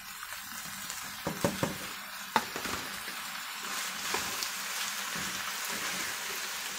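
Beef, green peppers and onion sizzling in a frying pan as diced tomatoes are poured in, with a few light knocks, the sharpest about two and a half seconds in; the sizzle grows a little louder after about three seconds, and a plastic spatula stirs the pan near the end.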